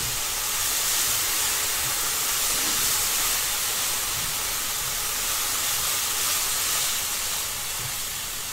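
Sambal belacan chili paste sizzling in a hot wok as it is stirred, giving off a steady high hiss of steam.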